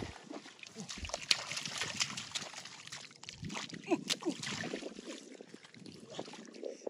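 Hands groping through shallow muddy water and mud, giving irregular splashing and sloshing.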